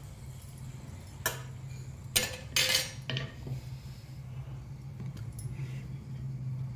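Steel spatula clinking and scraping against a nonstick frying pan as a paratha is flipped: a few sharp clinks and a short scrape in the first three seconds or so, over a low steady hum.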